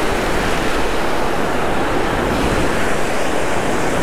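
Steady rush of breaking surf washing over the shallows, mixed with wind buffeting the microphone.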